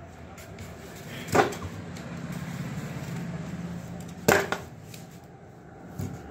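A knife cutting through a muskmelon half on a table, with two sharp knocks about three seconds apart as it goes through the fruit.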